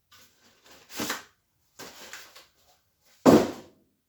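Unpacking and handling noises from a boxed bench vise and its packaging: a few short rustles and scrapes, then a louder thud about three seconds in.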